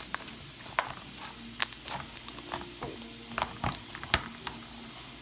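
Slime being squished and stretched by hand: scattered sharp wet clicks and pops over a faint steady hiss.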